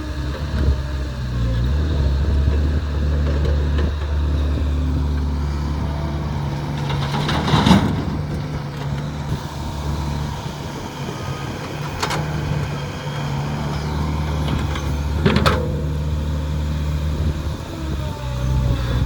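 Excavator's diesel engine running steadily under load, with louder short scraping or thudding noises about eight seconds in and again about fifteen seconds in, as the bucket works the earth.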